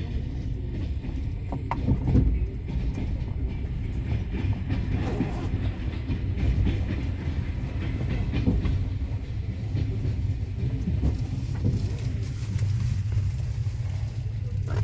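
Passenger train running: a steady low rumble with the wheels knocking over the rail joints.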